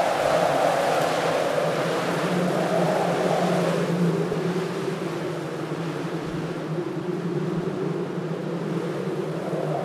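Wind blowing in gusts. It swells for the first few seconds, eases off through the middle and rises again near the end.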